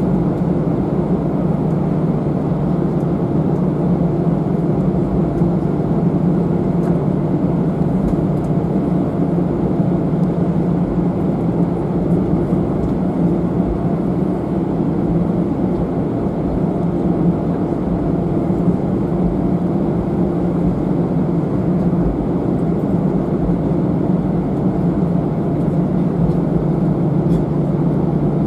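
Steady low drone inside the passenger cabin of an Airbus A319-111 on the ground before takeoff: aircraft engine and air-conditioning noise, with an even hum that does not change.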